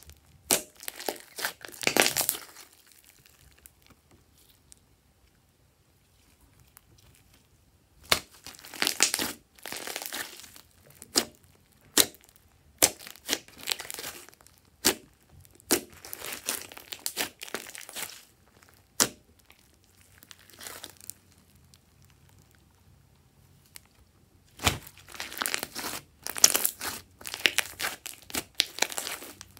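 Hands squishing and stretching a large mass of glossy slime, trapped air popping and crackling in quick strings of sharp pops. The pops come in bouts, with a quiet gap of several seconds early on and a shorter lull near the end.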